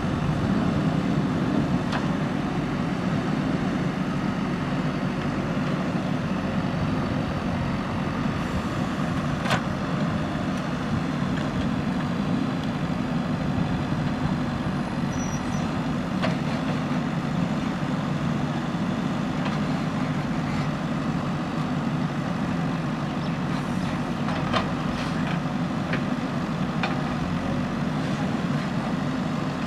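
JCB backhoe loader's diesel engine running steadily under load while it digs, with a few faint knocks.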